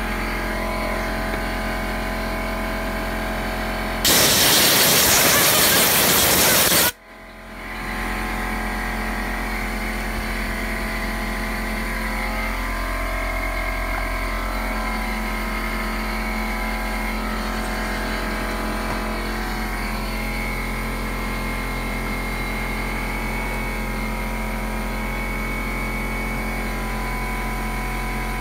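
A blast of air, about three seconds long, blown through an AntMiner S9 cooling fan to clean out the dust. It starts and cuts off abruptly over a steady mechanical hum.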